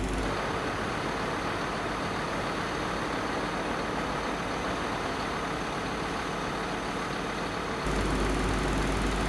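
A parked truck's engine running steadily with a low hum. The sound changes abruptly just after the start and again about eight seconds in, where the low hum grows stronger.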